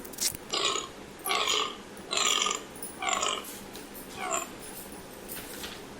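Deer calling: five short, harsh calls at about one a second, each dropping in pitch at its end, then a pause.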